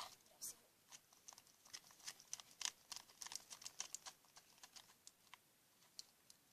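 Slime being mixed and handled, giving faint, quick, irregular clicks and ticks that are densest in the middle seconds.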